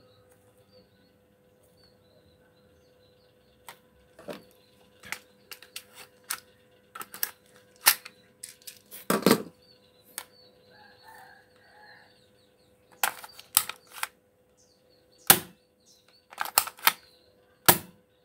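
Spring-powered Tec-9 airsoft SMG being cocked by hand and fired: a series of sharp clacks and snaps at uneven intervals, some in quick pairs.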